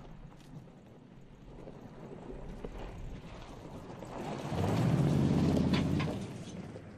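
Toyota Tundra TRD Pro pickup's 5.7-litre V8 getting louder as the truck drives down a dirt track toward and past the listener, loudest about four to six seconds in, then fading. Tyres crunch and click on the gravel as it passes.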